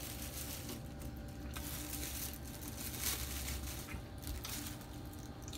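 Clear plastic food bag crinkling and rustling in the hands as food is unwrapped, in irregular spells, over a steady low hum.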